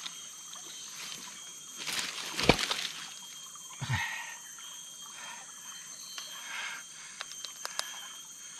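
A few knocks and rattles from handling a river fish trap and its catch, the loudest about two and a half seconds in, with a few sharp clicks near the end. Under them runs a steady high insect hum.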